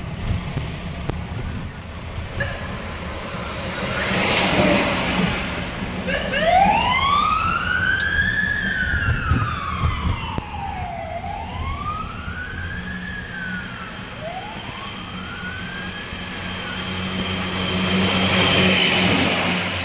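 Fire truck siren wailing in slow rising and falling sweeps over traffic and engine noise. Near the end a heavy truck engine grows louder as the fire truck comes close.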